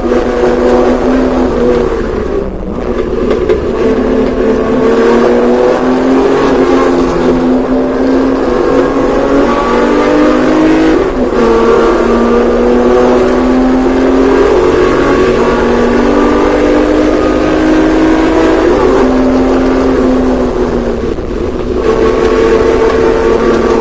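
Porsche 911SC's air-cooled flat-six engine at racing speed, heard from on board the car. The engine note climbs and falls as it is driven through the gears, easing off briefly about two seconds in and again near the end, over steady wind and road noise.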